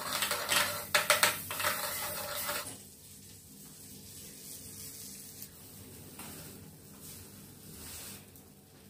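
Butter rubbed over the hot plate of a stovetop sandwich toaster, scraping and sizzling. After about three seconds the rubbing stops and a faint sizzle goes on.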